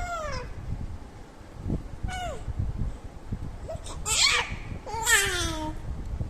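Two-month-old baby cooing and squealing in four short high calls, most falling in pitch, the last one the longest.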